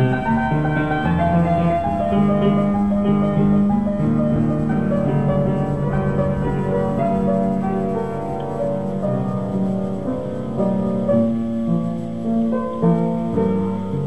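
Ambient black metal keyboard music: layered, sustained piano-like keyboard chords under a slowly moving melody.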